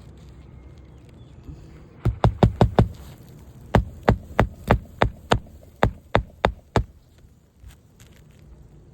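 Hammer driving roofing nails into a new asphalt shingle: a quick run of about five blows about two seconds in, then about ten steadier blows.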